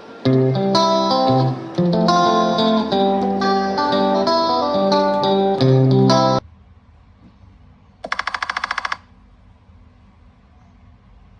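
A phone ringtone plays from a phone speaker: a bright melody of short plucked-string notes that cuts off suddenly about six seconds in. About two seconds later comes a one-second burst of fast, buzzy rattling pulses.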